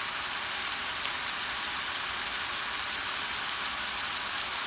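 Ground beef sizzling in a cast-iron skillet over a propane burner: a steady high hiss, with one small pop about a second in.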